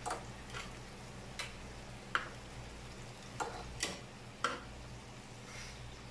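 Metal kitchen tongs clicking against a grill pan and the steaks as they are turned: about seven sharp clicks at uneven intervals in the first four and a half seconds, over a low steady hum.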